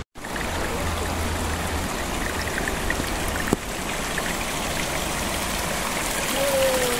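Steady rush of a small rocky woodland stream, water running and trickling over stones and roots, with a single sharp click about halfway through.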